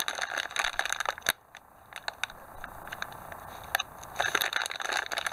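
Clear plastic bag crinkling and crackling as it is handled, with the model kit's tyres inside. The crinkling is dense for about the first second, eases off to scattered crackles, and picks up again near the end.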